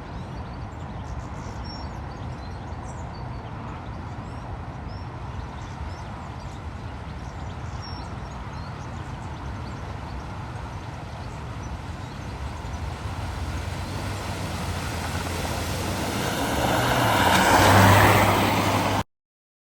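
A vehicle driving closer, its engine rumble growing steadily louder and peaking near the end before cutting off abruptly.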